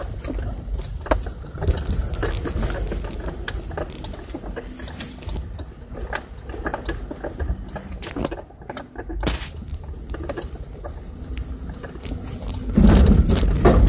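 Off-road vehicle driving a muddy, rutted trail, heard from inside the cab: a low engine rumble with frequent knocks and rattles from the body over bumps, the rumble getting louder near the end.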